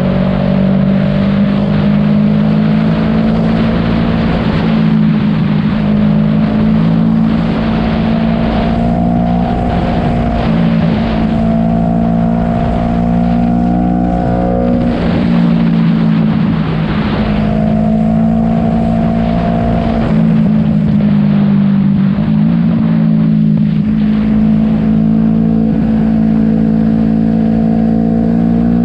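Motorcycle engine running at road speed, its pitch climbing slowly and dropping back several times as the throttle changes, with wind rushing over the microphone.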